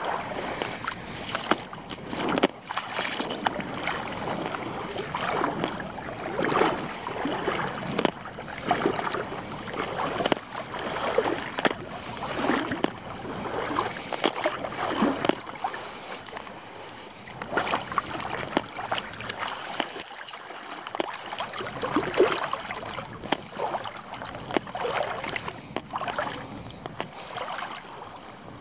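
Legs wading through calm, shallow seawater, a swishing slosh with each step, about one a second.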